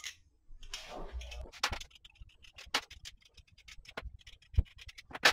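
Irregular small metal clicks and clinks, with some handling rustle, as the top plate is taken off an aluminium printer mounting bracket.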